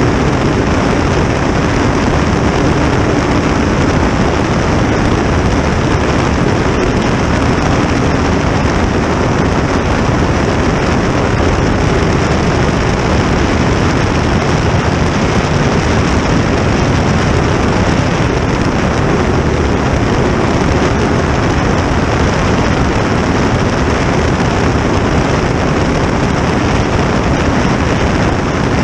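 Steady, loud rush of a river racing jet boat under way, heard from the cockpit: its 2000-hp gas turbine running continuously amid wind and water noise.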